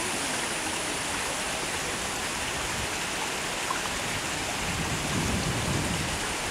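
Steady rushing of water, an even hiss with no rhythm. Low rumbling surges come in over the last second or so.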